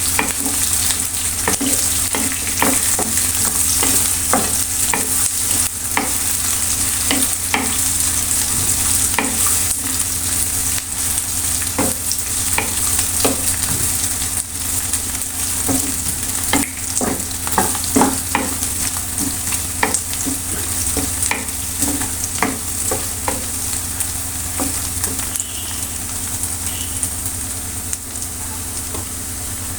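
Food frying and sizzling in hot oil in a pan, with a utensil clicking and scraping against the pan at irregular moments as it is stirred.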